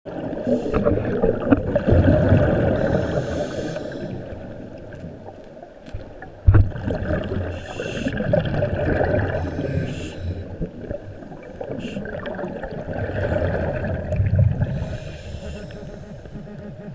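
Scuba diver's regulator breathing heard underwater: slow swells of exhaled bubbles gurgling about every five to six seconds, with brief hisses between them. A single sharp knock about six and a half seconds in.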